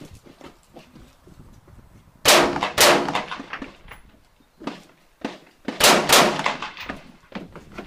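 Rifle shots fired during an IPSC rifle stage: about six loud shots, roughly in pairs, with fainter sharp metallic clangs between them from bullets striking steel targets.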